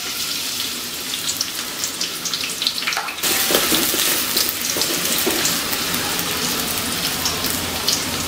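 Chopped onions sizzling and crackling in hot oil in a metal pot, stirred with a wooden spatula. The sizzle gets louder and brighter about three seconds in.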